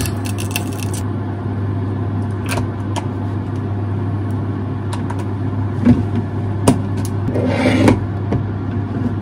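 Kitchen range-hood extractor fan running with a steady hum. A light crackle of the hot frying pan stops about a second in. A few clicks and knocks of utensils and containers follow, with a short rustling burst near the end.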